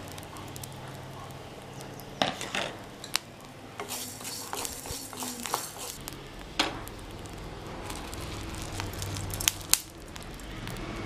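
Wooden spatula stirring coriander seeds and whole spices dry-roasting in a small kadai: the seeds rattle and the spatula scrapes the pan, with a low sizzling hiss and occasional sharper taps against the metal.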